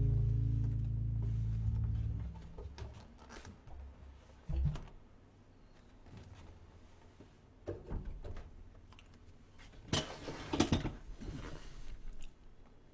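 A final plucked double bass note rings and fades out over about two seconds. Then come handling noises as the bass is moved and leaned in the corner: a thump about four and a half seconds in, a few clicks, and a cluster of knocks and rustles near the end.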